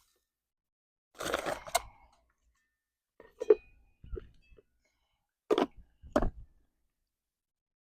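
A few short, separate crunches and knocks spread over several seconds, with quiet between them.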